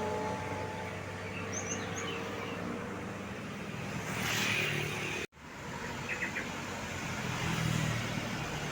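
Vehicle engine and road noise, with the engine hum fading over the first few seconds and a few faint bird chirps. The sound cuts out completely for an instant about five seconds in, then the road noise resumes.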